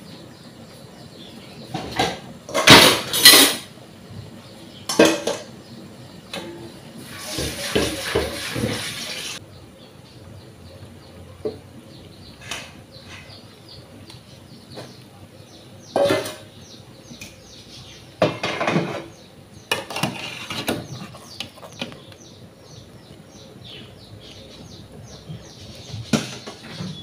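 Metal cookware and a metal skimmer clinking and clattering in irregular knocks against an aluminium pot and a steel bowl while boiled dumplings are scooped out of the water, the loudest clatter a few seconds in. About seven seconds in there is a couple of seconds of rushing noise.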